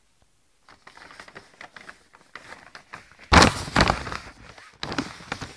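Plastic courier mailer bag crinkling and rustling as it is handled and opened, with louder crackling bursts about three and a half seconds in and again near the end.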